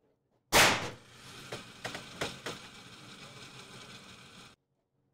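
A single gunshot about half a second in, with a ringing tail, followed by a few seconds of steady noise carrying several fainter sharp cracks, which cuts off abruptly near the end.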